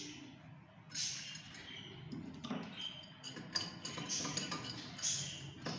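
Adjustable wrench clinking against the metal fittings of a chrome kitchen tap as it is fitted onto the spout nut: a handful of sharp metal clinks spread over several seconds.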